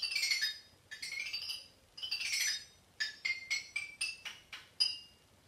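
Children's rainbow toy xylophone played with a beater: three quick glissando sweeps across the bars, then single notes struck one by one, climbing up the scale about four a second.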